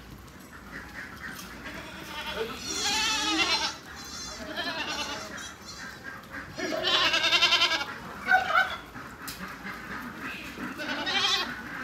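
A herd of goats bleating: several calls with a wavering pitch, the loudest about three seconds in and again around seven seconds in, with shorter bleats in between.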